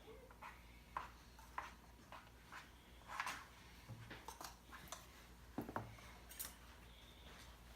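A spoon stirring a thick slime mixture of glue, shaving cream and cornstarch in a bowl: faint, irregular clicks and scrapes of the utensil against the bowl.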